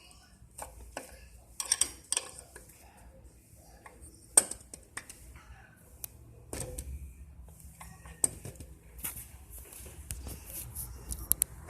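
Metal clinks and taps of an open-end wrench working on a serpentine belt tensioner, irregular sharp clicks with the loudest about four and a half seconds in.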